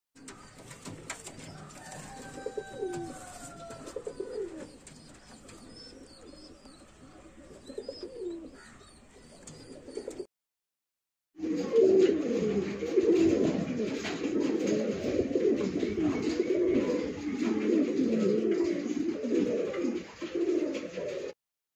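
Domestic fancy pigeons cooing: a few separate coos at first, then, after a short break, louder cooing that goes on almost without pause.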